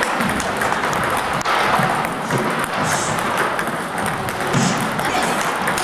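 Celluloid table tennis balls clicking in quick succession off rubber paddles and the table top during a multi-ball feeding drill.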